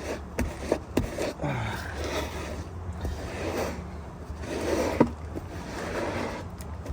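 Handling and scraping noises: rustling and scraping with a few sharp knocks and clicks, from parts and debris being worked loose by hand in a truck cab.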